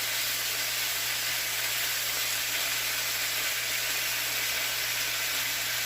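Skin-on chicken thighs frying in oil in a hot frying pan, with a steady, even sizzle that does not let up. A constant low hum sits underneath.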